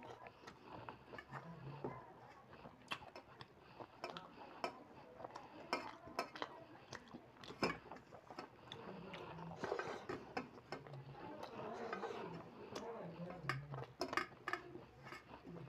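Fingers mixing and scooping rice on a stainless steel plate, with many small clicks and scrapes against the metal.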